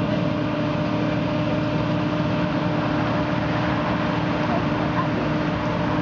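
John Deere combine harvester running steadily with a constant droning hum while its unloading auger pours wheat into a lorry.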